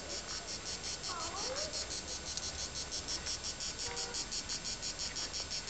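Insects chirring in a fast, even, high-pitched pulse of about six or seven beats a second.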